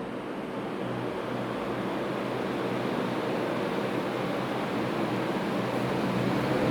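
Vision Super 56-inch ceiling fan running: a steady rush of moving air with a low motor hum, growing steadily louder.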